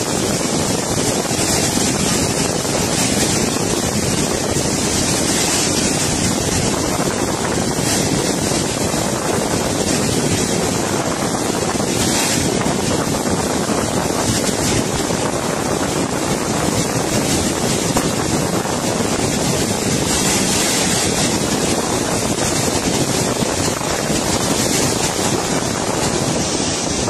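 Floodwater rushing, a steady loud noise that does not let up.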